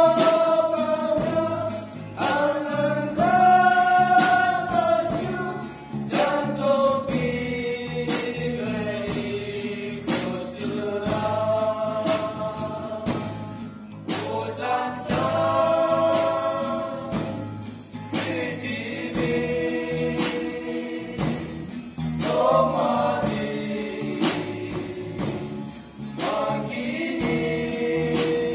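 A men's group singing a gospel song together in held, sustained notes, accompanied by a strummed acoustic guitar.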